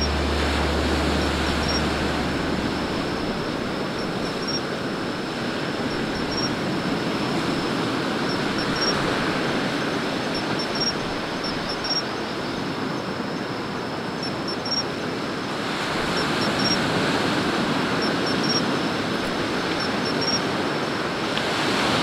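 Sea surf washing onto a beach: a steady hiss of breaking waves that swells a little in the last few seconds, with faint short high chirps recurring throughout.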